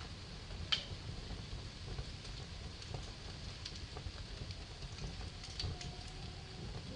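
Wood fire burning in a fireplace: a low steady rumble of the flames with scattered crackles and pops, the sharpest pop about a second in.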